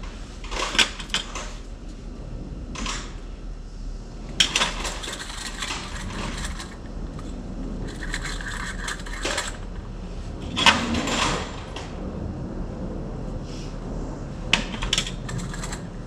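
Metal hand tools and sockets clinking and clattering as they are handled and rummaged through, in several separate bursts of sharp clicks and clanks.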